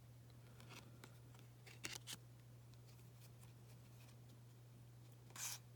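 Near silence with a low steady hum, broken by faint rustles and clicks of trading cards being handled and a brief swish near the end as a card is slid off the stack.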